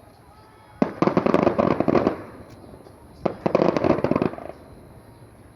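Fireworks crackling in two bursts of rapid, dense pops, each lasting about a second, separated by a short lull.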